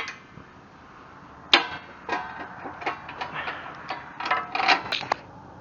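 Hand tools clicking and clanking against steel as someone works at a seized nut on the joystick control linkage of a Kubota BH77 backhoe. One sharp metallic clank rings out about a second and a half in, followed by a run of lighter clicks and taps.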